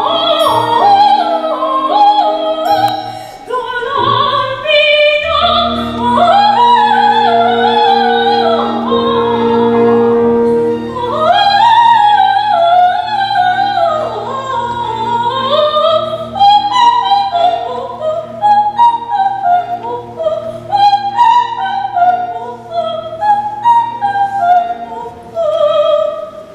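Classical operetta-style singing, a trained voice with vibrato carrying long sweeping phrases over instrumental accompaniment with held chords.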